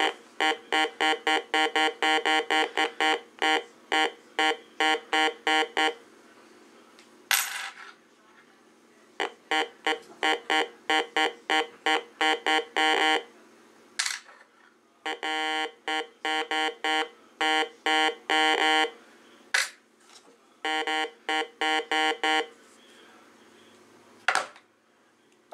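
Heathkit GD-1190 metal detector beeping, rapid runs of short tones at about four a second, as metal items are passed over its search coil: the tone means it has picked up metal worth digging. Several runs start and stop, with a few sharp clicks in the pauses between them.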